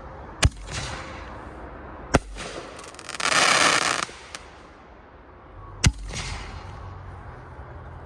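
6-inch artillery firework shells going off: sharp loud bangs about half a second, two seconds and six seconds in, each trailed by a rolling echo. A loud hiss lasts about a second in the middle.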